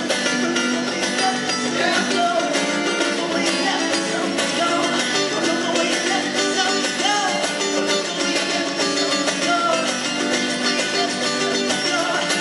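Live acoustic music: steel-string acoustic guitars strummed at a quick, steady rhythm, with a man singing over them.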